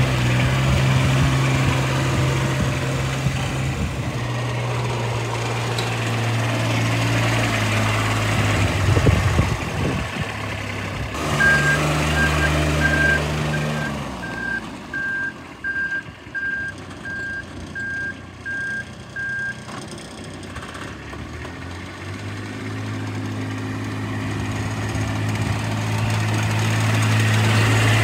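Club Car Carryall 1700 utility vehicle's Kubota diesel engine running as it is driven, its pitch rising and falling with the throttle. About eleven seconds in, its reverse alarm starts beeping steadily, about once every 0.7 s, for some eight seconds while it backs up.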